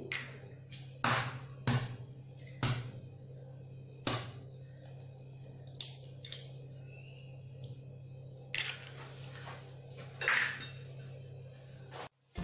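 An egg tapped against the rim of a chopper bowl and cracked open: a few sharp taps about a second apart, then softer shell cracking and handling near the end, over a steady low hum.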